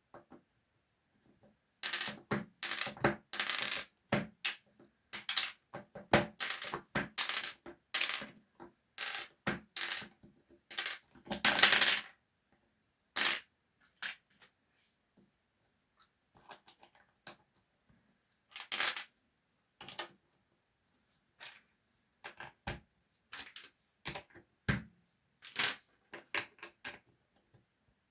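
Small hard objects clicking and clattering: dense bursts for the first dozen seconds, then scattered single clicks.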